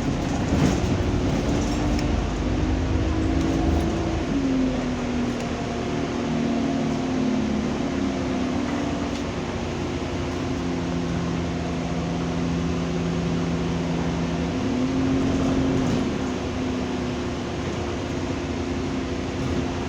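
Diesel bus engine and gearbox running under way, heard on board, its pitch dropping about four seconds in, stepping down near the middle and rising then falling again later as the bus accelerates and changes gear.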